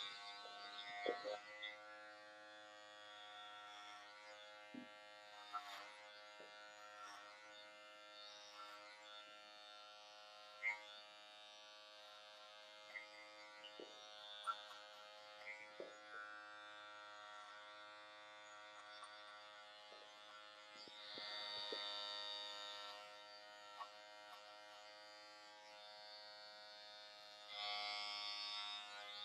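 Electric hair clippers running with a steady buzz, scattered with small clicks. The buzz gets louder and brighter twice, once two-thirds of the way through and once near the end.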